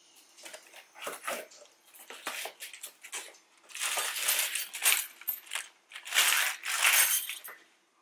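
A cardboard shipping box being opened and unpacked: irregular scraping and rustling of cardboard and plastic packing, with scattered taps and clicks. The loudest rustling comes in two stretches around the middle and toward the end.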